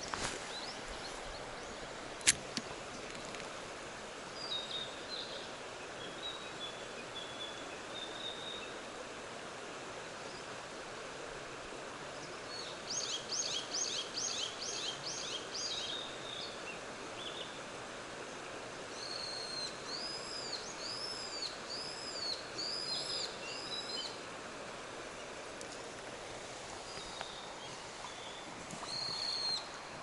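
Steady rush of a mountain stream with birds singing over it: a fast run of repeated high notes about 13 seconds in, then a series of arched whistled notes from about 19 to 24 seconds. Two sharp clicks at the start and about two seconds in come from the spinning reel during the cast.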